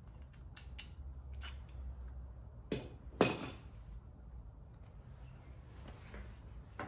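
Metal tools clinking: a few light clicks, then two sharper metallic clanks close together about three seconds in, the second one ringing briefly.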